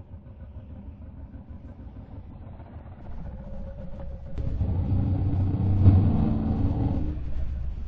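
A vehicle's engine rumble that grows louder from about three seconds in, is loudest around six seconds, then eases a little.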